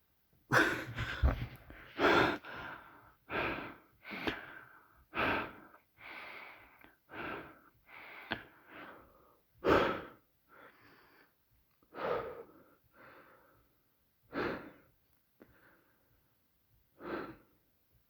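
A person panting after running: heavy breaths in and out, quick and close together at first, then slowing and spreading out as they get their breath back.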